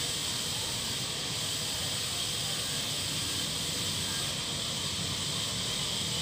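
Steady hiss with a low rumble beneath it, even throughout, with no distinct events standing out.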